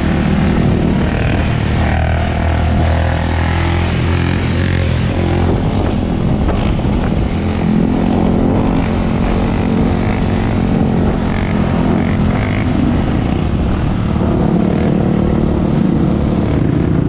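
Small off-road engines of ATVs (quads) and a dirt bike running at speed, their pitch shifting as the riders work the throttle.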